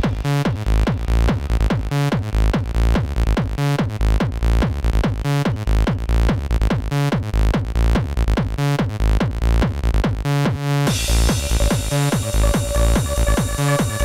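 Techno in a DJ mix, driven by a steady kick drum and bass. Nearly eleven seconds in, a bright layer of hi-hats and a held synth note join the beat.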